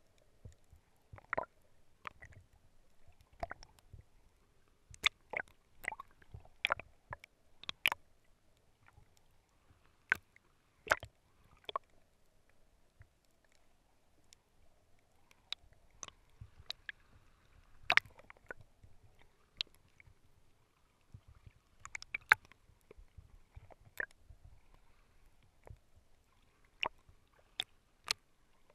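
Underwater sound picked up by a GoPro in its waterproof housing: scattered sharp clicks and knocks at irregular intervals, over a faint low rumble of moving water.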